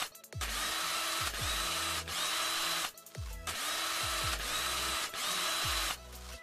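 Sound-designed grinding, drill-like machine noise for an animated logo being cut out by a sparking machine head. It comes in two long stretches of about two and a half seconds each, with a short break between them, and deep booms that drop in pitch punctuate each stretch.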